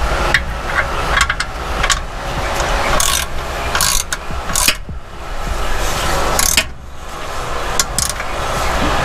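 Ratchet with a 14 mm socket clicking in short, irregular strokes as the oil drain bolt, fitted with a new copper crush washer, is tightened into the oil pan. A steady background hum runs underneath.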